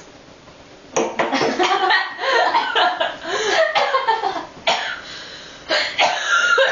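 Women coughing and laughing in repeated bursts, starting about a second in.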